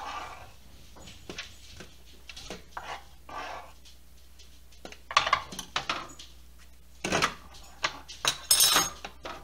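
A kitchen knife and hands working on a plastic cutting board: soft scraping in the first few seconds, then sharper knocks and clatter in the second half, loudest about five and eight and a half seconds in.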